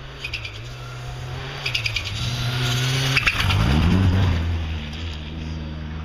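Rally car engine coming up and passing close by on a snow stage, loudest about three to four seconds in, where its note changes sharply, with quick crackles as it approaches.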